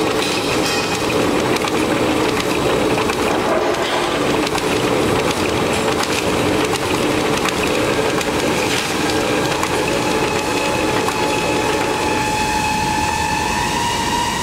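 Horizontal eye-through coil wrapping machine running, its wrapping ring spinning through the coil's eye as it winds film around the coil: a steady mechanical rumble and clatter. A steady whine comes in over the last few seconds.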